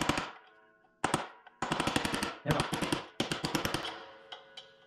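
Quick runs of metal-on-metal blows: a hammer tapping a steel punch to drive the drilled-out wastegate pivot pin out of a BMW N54 turbo, with the cast metal ringing after the blows. A short run, a pause of about a second, then a long run that tapers off.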